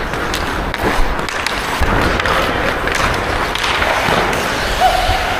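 Ice hockey skate blades carving and scraping on the ice, with a few sharp clacks of sticks on the puck.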